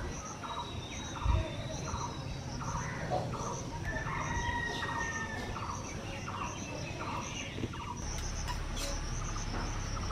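Birds and insects calling: a short chirp repeated about twice a second, a high pulsing insect call, and a brief whistled note in the middle. A single knock comes about a second in.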